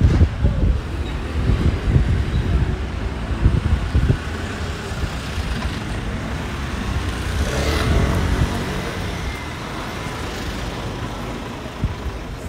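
City street traffic. A motor vehicle passes close by about eight seconds in, its engine swelling and then fading, over low rumbling in the first few seconds.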